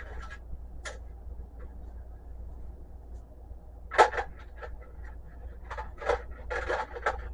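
Handling noise of wire being moved about and set on a scale: a sharp knock about four seconds in, then a few quick rustling clatters near the end, over a steady low hum.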